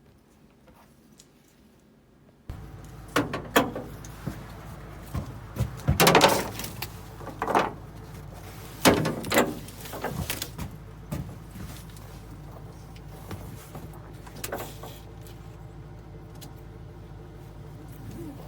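Near silence, then a steady low hum that starts abruptly about two and a half seconds in, with scattered knocks and clicks over it, the loudest about six and nine seconds in.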